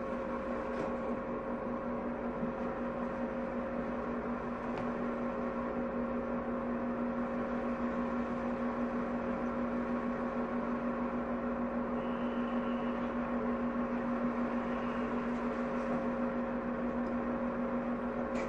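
Steady electrical hum from a stationary Shin-Keisei 200-series electric train, with a low tone and a higher one held unchanged.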